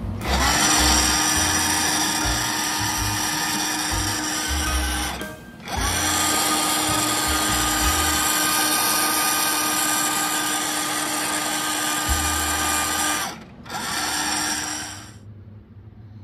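A handheld electric power tool spins up and runs at a steady speed with a loud hiss. It stops and restarts twice: a run of about five seconds, a longer run of about seven seconds, then a short final burst.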